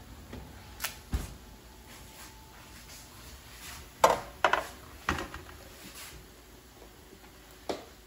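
A metal baking sheet is lifted out of an oven and set down on a granite countertop: a few scattered knocks and clatters, the loudest cluster about four seconds in.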